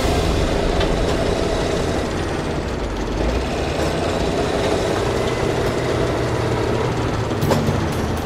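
A heavy vehicle's engine running with a steady rumble, and a sharp knock about seven and a half seconds in.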